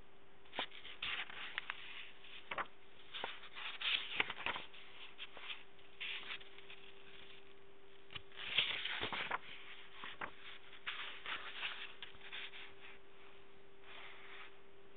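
Paper pages of a memory book rustling and scraping as they are handled and turned, in short irregular bursts, the loudest about four seconds in and again around nine seconds. A steady hum runs underneath.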